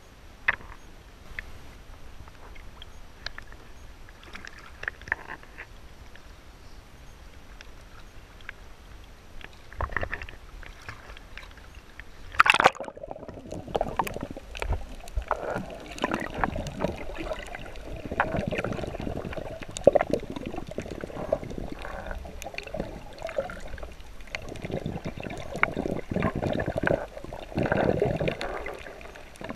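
Water sloshing and gurgling, with scattered small clicks and one sharp knock about twelve and a half seconds in, after which the sloshing grows busier and louder.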